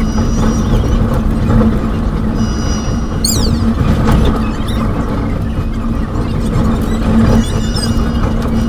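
Passenger train running along the track, heard from aboard: a steady loud rumble with a constant low hum. High thin tones come and go three times over it, with a quick high gliding sweep about three seconds in.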